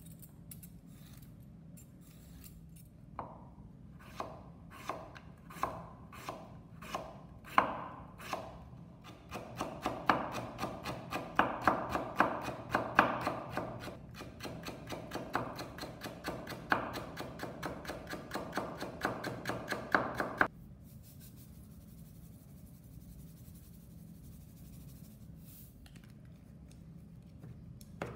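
Kitchen knife julienning carrot and daikon radish on a wooden cutting board. It starts with separate cuts about one every half second or more, then turns to quick, even chopping strokes several a second that stop about two-thirds of the way through.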